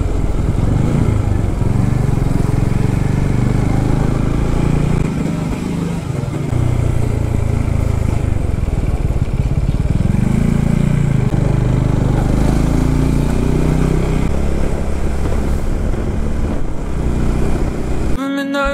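Motorcycle engine running under way, its pitch rising and falling as the rider accelerates, with steady wind noise over it.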